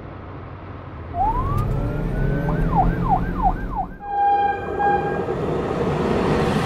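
Police car siren: a rising wail about a second in, then a fast up-and-down yelp, over a low engine rumble. It stops abruptly about four seconds in, followed by a steady horn blast and the rising rush of an approaching train.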